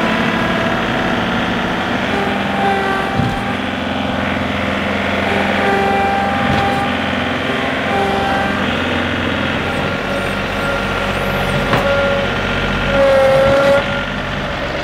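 John Deere 3038E compact tractor's three-cylinder diesel engine running hard under load as the front loader pushes at a small tree to uproot it. Whining tones come and go over the engine note, and there is a louder stretch near the end.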